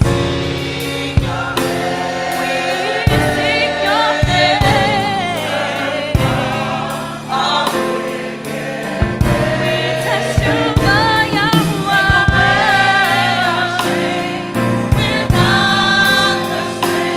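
A choir singing in gospel style over instrumental backing with a steady beat.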